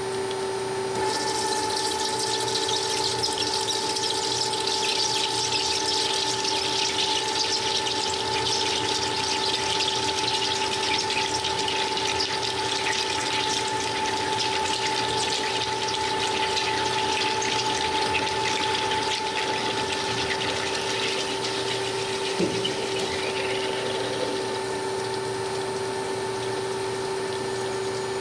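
CNC cutting machine running with a steady motor whine. About a second in, a loud hissing, crackling cutting noise starts; it fades out near the end while the whine carries on.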